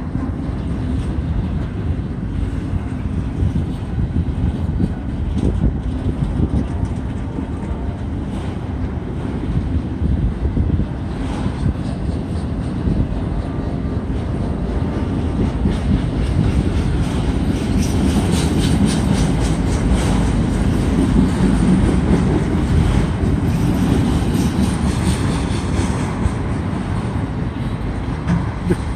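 Empty autorack cars of a slow freight train rolling past on steel rails: a steady rumble of wheels on track, with a run of quick clicks and rattles in the second half as the sound grows a little louder.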